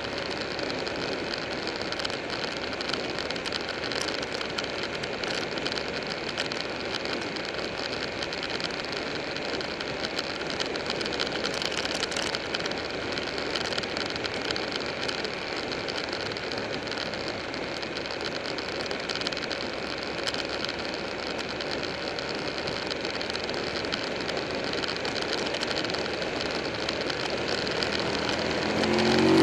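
Motorcycle riding at a steady cruise: the Buell 1125R's V-twin engine running evenly under a wash of wind and road noise. It gets a little louder near the end.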